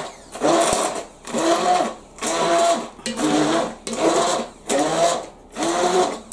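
Hand-held immersion blender puréeing thick broccoli soup, pulsed on and off about once a second: its motor whirs up with each press and drops away between presses.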